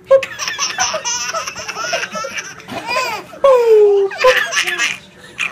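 A baby laughing in quick, high bursts of giggles. About three and a half seconds in, a voice slides down in pitch.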